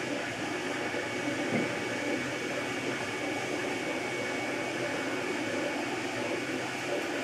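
MakerBot Replicator 2 3D printer running mid-print: a steady whir from its fans with a faint hum of the stepper motors as the extruder head moves.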